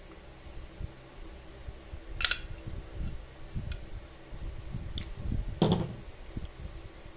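Parts of an angle grinder cutting stand being handled and fitted together: low handling noise with small knocks, a sharp click about two seconds in and a louder knock late on.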